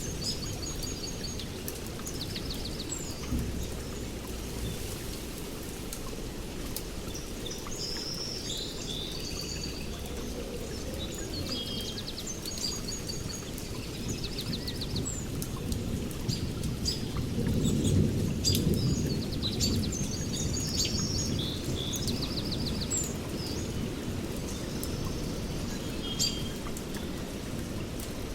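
Steady rain falling on forest foliage, with sharp drops ticking close by. Songbirds chirp and trill in short repeated phrases above it throughout. A low rumble swells and fades a little past the middle.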